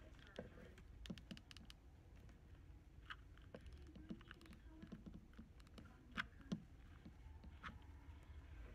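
Faint, scattered clicks and taps of small plastic objects, a mini hot glue gun and markers, being handled and set down on a wooden table, with two louder knocks a little past the middle.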